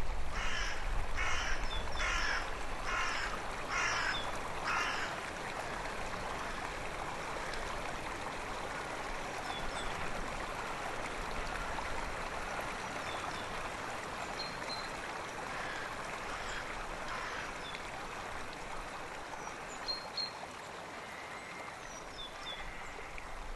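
Six harsh, caw-like animal calls about 0.8 s apart in the first five seconds, then a steady watery hiss with a few faint high chirps.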